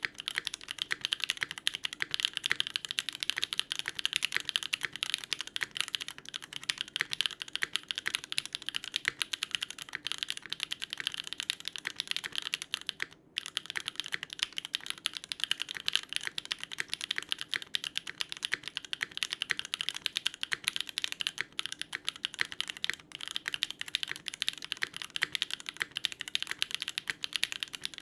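Continuous typing on a Geonworks W1-AT mechanical keyboard with an FR4 plate, stock Gateron Pure Berry switches, lubed screw-in stabilisers and GMK keycaps. It is a dense stream of keystroke clacks, with a brief pause about thirteen seconds in.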